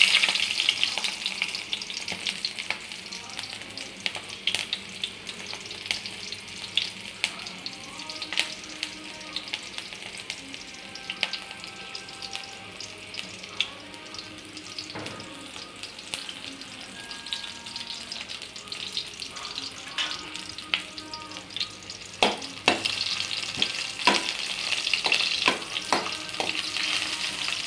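Onion pieces frying in hot oil in a kadai: a steady sizzle with scattered crackles, louder at the start and again in the last few seconds. Near the end, a few sharp knocks as a steel spoon stirs them against the pan.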